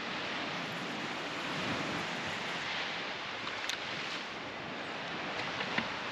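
Gulf surf washing steadily onto a sand beach, with wind on the microphone. Two faint sharp clicks come late on.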